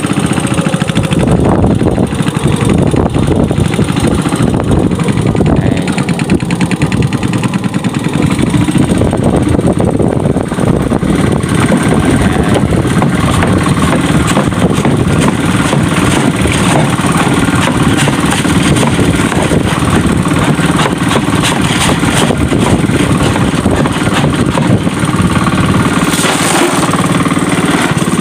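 Small boat engine running steadily and loudly, towing a cockle dredge through the water by rope.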